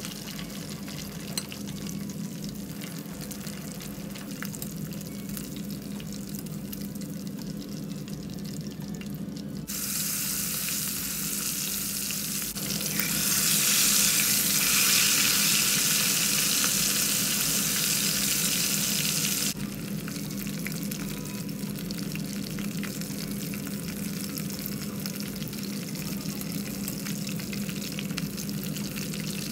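Quail deep-frying in a pot of hot oil: steady bubbling and sizzling over a low hum, with a single click about a second and a half in. About ten seconds in the sizzle turns suddenly much louder and hissier, as raw marinated quails go into the oil, then drops back to a gentler fry near the twenty-second mark.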